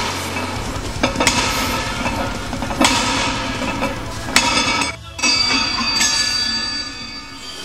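Loud soundtrack music with a steady low pulse and sharp metallic hits about every one and a half seconds. It drops out briefly about five seconds in and comes back with sustained high tones.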